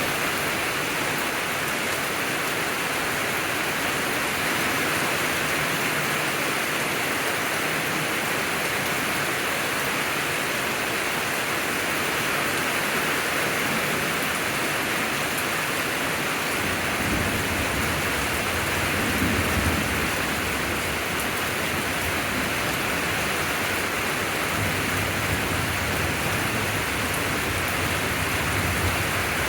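Steady rain falling during a thunderstorm. Low rumbles of thunder roll in about halfway through and again near the end.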